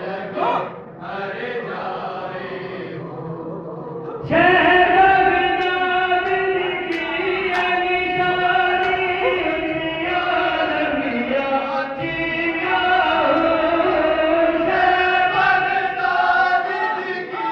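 Devotional zikr chanting by voices in a gathering, with long held notes. The chant becomes suddenly louder and fuller about four seconds in.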